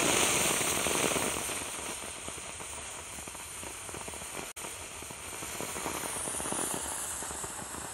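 Firework rocket's propellant hissing and crackling as it burns on the ground, pouring out smoke without lifting off: the rocket is failing to launch. The sputter is loudest in the first second and then settles to a steady crackling hiss.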